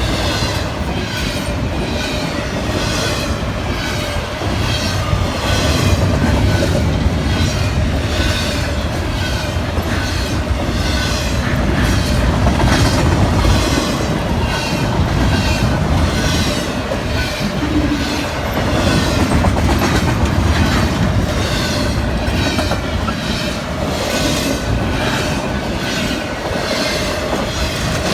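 A train's cars rolling past, wheels clicking over the rail joints in a steady, repeating rhythm, with a faint wheel squeal.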